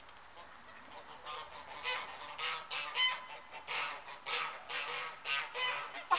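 Domestic goose honking in a rapid series of calls, about two or three a second, starting about a second in.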